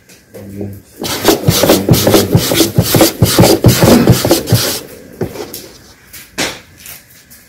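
Rapid rubbing and scraping against a floured wooden dough board, close to the microphone: a dense run of strokes starting about a second in, then thinning to a few light touches in the last seconds.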